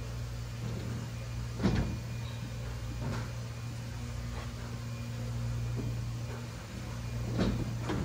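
A few dull knocks and bumps as a blanket-wrapped refrigerator is shifted and tipped in a doorway, over a steady low hum.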